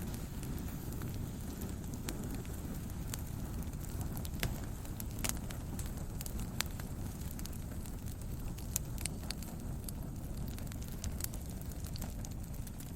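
Brush fire burning: a steady low rumble of flames with irregular sharp crackles and pops as the burning brush snaps.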